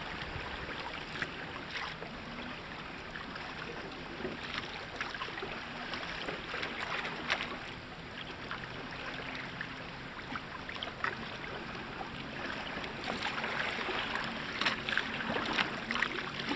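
Water rushing and splashing against the hull of a sailing kayak moving through choppy sea, with sharp slaps of small waves now and then that come more often near the end.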